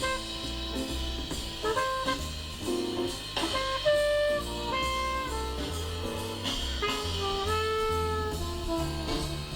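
Instrumental music with held, horn-like melody notes over a steady bass line, played in the room and picked up by a Sony ECM-HST1 stereo camcorder microphone set to its 120-degree pickup.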